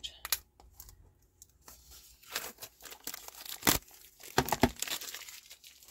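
Cellophane wrapping crinkling and tearing as it comes off a plastic Stampin' Up! ink pad case, with a few sharp plastic clacks a little past halfway as the cases knock together.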